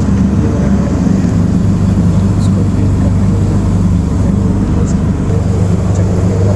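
A machine running with a steady low drone, with a few faint light ticks over it.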